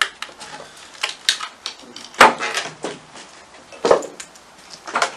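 Footsteps crunching and knocking on a floor littered with rubble and rubbish, irregular steps with the loudest about 2 and 4 seconds in.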